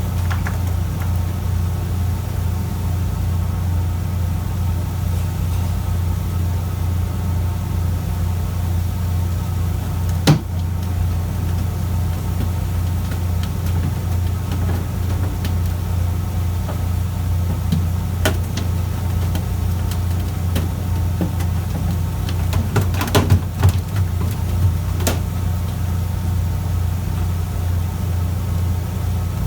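Fishing boat's engine running with a steady low drone, with a few sharp knocks and clatters on board, most of them bunched together about three-quarters of the way through.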